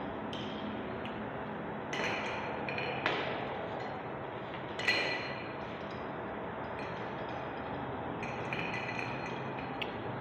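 A few sharp metallic clinks, each ringing briefly, about two, three and five seconds in, the last the loudest, over a steady background noise.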